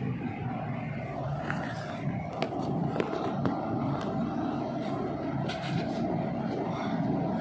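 Steady mechanical hum of workshop background with a few sharp metallic clicks from hand tools, about two and a half to three and a half seconds in, while the drive belt is being taken off the engine.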